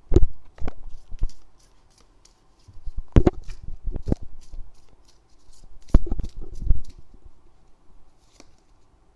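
A tarot deck and its cardboard box handled on a tabletop: an irregular run of taps, knocks and card rustles in three clusters, fading out near the end.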